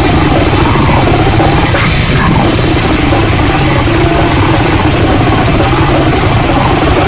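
Loud heavy rock music with a driving drum kit, dense and unbroken.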